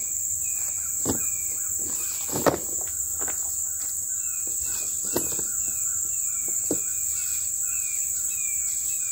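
Steady high-pitched drone of insects, with short falling chirps repeating about twice a second, and a few scattered clicks and knocks from a rope for a magnet being handled.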